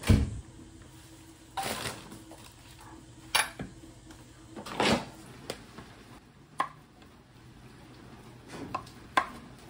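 Kitchen work: scattered knocks and clatters of dishes and utensils being handled on a counter, and a large knife cutting squash on a wooden chopping board, with a few short chops in the last few seconds.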